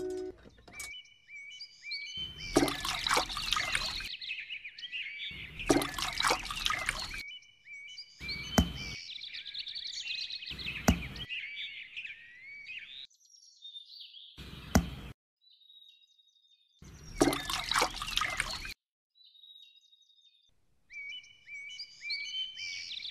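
Small birds chirping and whistling, broken every few seconds by short spells of water pouring and splashing. The sound cuts off abruptly several times.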